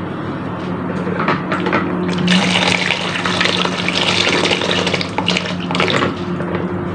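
Water poured in a steady stream from a pitcher into a container, splashing for about three and a half seconds and starting a couple of seconds in, after a few short knocks and splashes.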